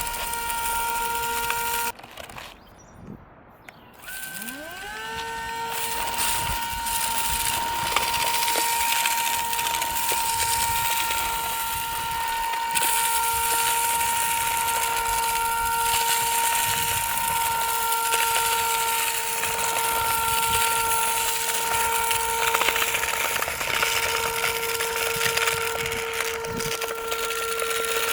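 Haimeec cordless stick vacuum's motor running with a steady whine over a hiss of air, cutting off about two seconds in. About four seconds in it spins back up with a rising whine and runs on steadily. It is a struggling motor that the owner judges shot and without suction.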